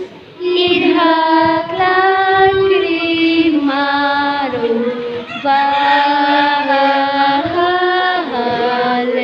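Children singing a slow song together in unison, holding long notes that step up and down in pitch. The singing comes in about half a second in after a short breath.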